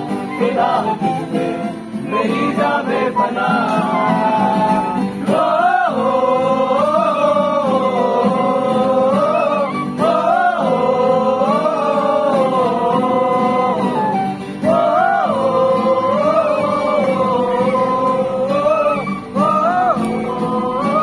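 Live acoustic music: acoustic guitars played under a wavering melody of male voices singing, with a bamboo flute (bansuri) playing along.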